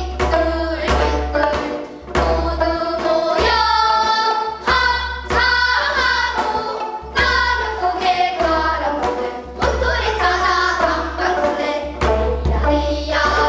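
Girls' voices singing a Korean sinminyo folk song together, accompanied by their own plucked gayageum zithers.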